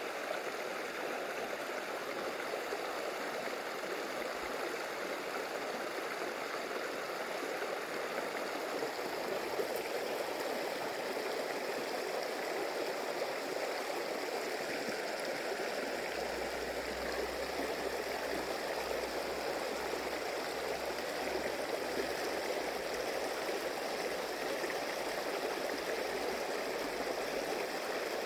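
Stream water flowing, a steady rush with no break.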